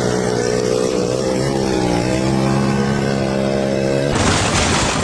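An engine running steadily, its pitch drifting slightly. About four seconds in it cuts off suddenly and gives way to a loud, even rushing noise.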